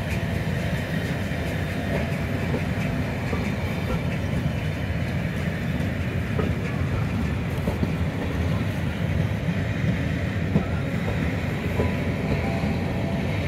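Passenger coaches of a departing train rolling steadily past, a continuous low wheel rumble with occasional faint clicks over the rail joints.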